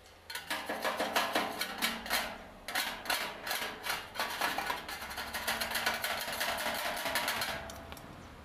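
Stick (arc) welding on galvanized sheet steel: the arc crackles and sputters irregularly with a faint steady hum under it, starting suddenly just after the start and breaking off near the end.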